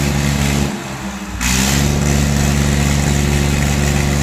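Tractor's diesel engine running hard and steady under heavy load as it hauls a loaded trailer, with a short dip in level about a second in.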